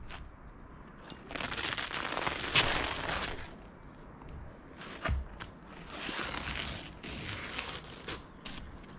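Rough scraping and crunching on the roofing felt of a flat shed roof, in two long passes about two seconds each, the first starting just over a second in and the second around six seconds, with a dull knock between them.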